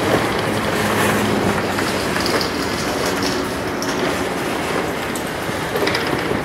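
Norfolk Southern intermodal freight train's double-stack container well cars rolling past, with steady wheel-on-rail noise and a few brief high squeals.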